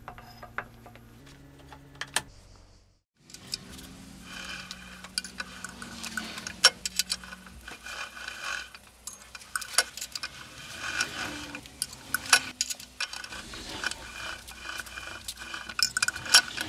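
Geared rolling mill rolling a cast shibuichi ingot down into strip: irregular metallic clicking and rattling from the gears and rollers, with some sharp clacks. Before it, a few light metal clinks and a brief silent gap about three seconds in.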